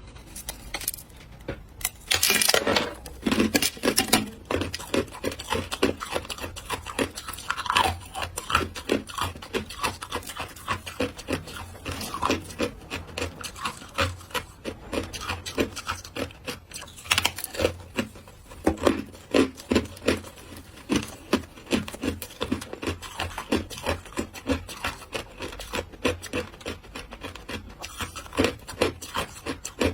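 A person biting and chewing through ice, matcha shaved ice, with rapid crunches several times a second. A heavier run of crunches comes about two to four seconds in.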